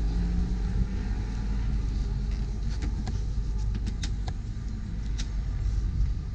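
Steady low rumble of outdoor background noise, with several light clicks about three to five seconds in.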